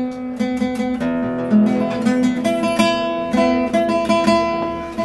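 Acoustic guitar strummed in a quick, even rhythm, the chord changing about a second in.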